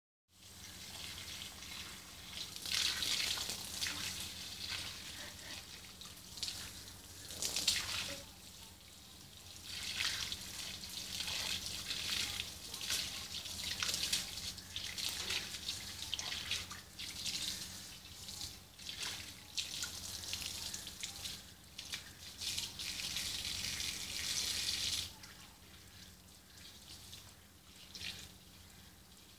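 Water from a garden hose splashing onto a wet concrete floor, swelling and dipping in loudness as the stream moves. It becomes much quieter near the end.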